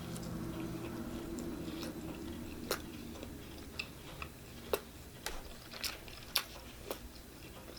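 A person chewing pizza close to the microphone, with wet mouth clicks and smacks coming irregularly, about eight sharp ones in the second half.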